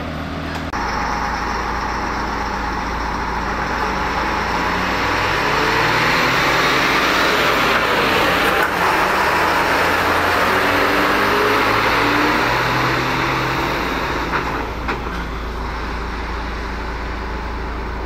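Heavy fire engine driving past close by: engine and tyre noise builds up over several seconds, is loudest as it passes, and fades as it drives away.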